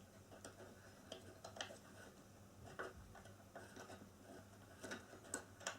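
Faint, irregular small clicks and taps of bolts being tightened by hand into a flat-pack chair frame, against near silence.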